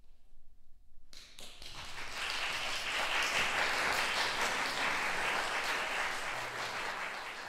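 Audience applauding in a concert hall. The clapping starts about a second in and quickly builds to a full, steady applause.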